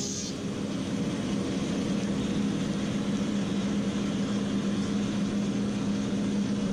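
Woodmaster 725 thickness planer running steadily with no board in it; a higher hissing cutting noise dies away just after the start, leaving the motor's steady hum.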